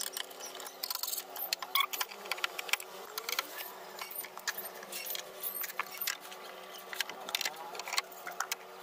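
Sped-up sound of hand tools working on a car door's inner steel panel: a rapid run of metallic clicks and clinks as screwdriver and ratchet undo the window regulator and motor nuts.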